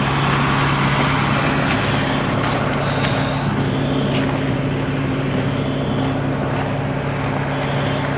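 Large diesel vehicle engine idling with a steady low hum, with scattered short clicks over it.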